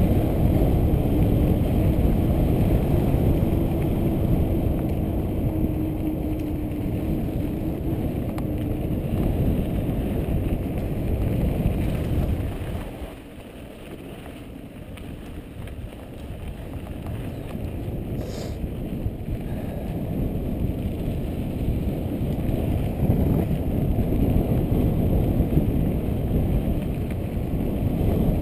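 Wind buffeting a helmet camera's microphone and the rumble of mountain bike tyres on a dirt trail during a descent. The noise eases off for a few seconds about halfway, then builds again, with one short click a little later.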